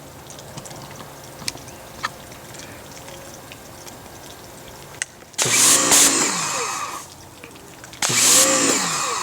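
Greenworks 1700 PSI electric pressure washer running in two short bursts of about a second and a half each, its motor starting and stopping with each squeeze of the trigger, with the hiss of the water jet over the motor's whine.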